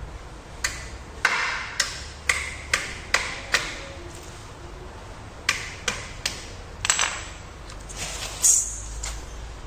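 A hammer tapping plastic wall plugs into holes drilled in a pillar: about a dozen sharp strikes in two runs, with a pause in the middle and one last hard hit near the end.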